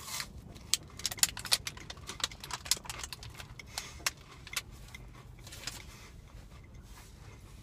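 A crunchy wafer protein bar being bitten and chewed close to the microphone, with its plastic wrapper crinkling in the hands: a run of short crisp crackles and clicks, thick in the first half and thinning out toward the end.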